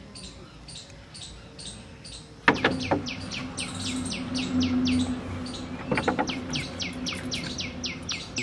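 A bird chirping in a quick, even series of short falling notes, several a second, faster after a sharp knock about two and a half seconds in. A low steady hum runs under the chirps after the knock.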